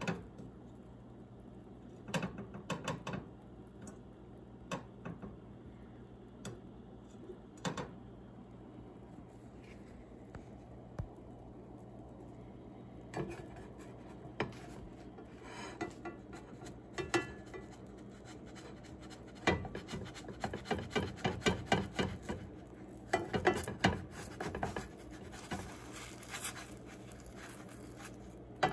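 A spatula scraping and tapping against a nonstick frying pan: scattered strokes at first, then a dense run of quick scrapes about two-thirds of the way through as the pancake is worked loose and turned. A faint steady hum sits underneath.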